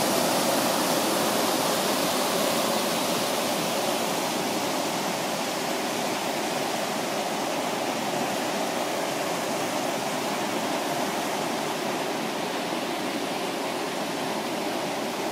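River waterfall cascading over rocks: a steady, unbroken rush of water.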